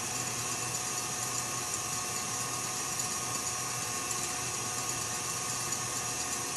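Stand mixer running steadily on medium speed, its wire whisk beating egg whites for meringue.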